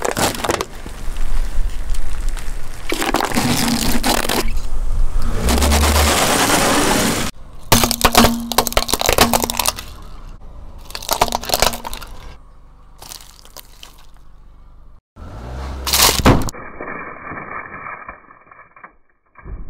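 A string of short clips of objects crushed under a car tyre: hard plastic cracking and breaking, and soft, wet things squishing and splattering. Each clip cuts off abruptly.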